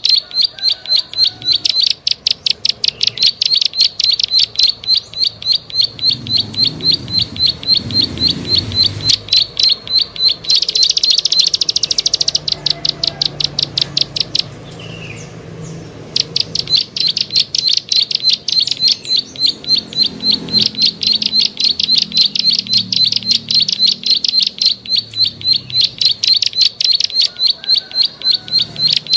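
Plain prinia (prenjak sawah) calling on a lure recording: a fast series of sharp clicking notes, several a second. About ten seconds in comes a short buzzy note, then a pause of about four seconds before the clicking resumes.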